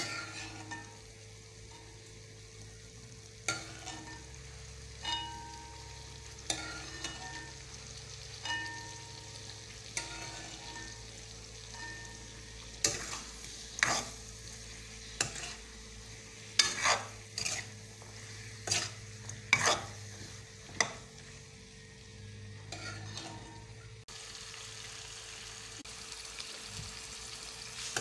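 Metal ladle stirring potatoes and chickpeas in a metal karahi, its edge scraping and knocking sharply against the pan, over a faint sizzle of frying. The knocks come every second or two at first and grow quicker and closer together about halfway through.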